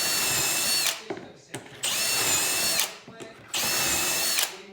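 Power drill running in repeated bursts of about a second each: one burst ends about a second in, another starts around two seconds in and a third about three and a half seconds in, each with a steady high whine that winds down as the trigger is released.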